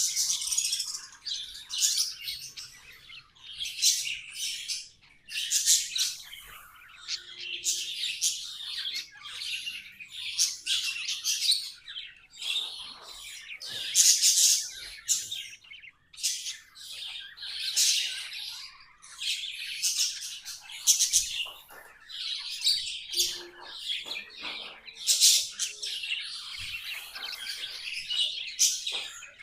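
Pet budgerigars chirping and warbling in a busy, continuous stream of quick high chirps with brief pauses.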